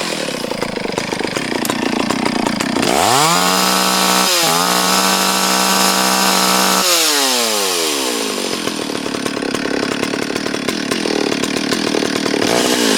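Stihl 034 AV Super two-stroke chainsaw running. About three seconds in it revs up to full throttle and holds there for roughly four seconds with a brief stumble, then drops back to a lower idle, and it winds down again near the end.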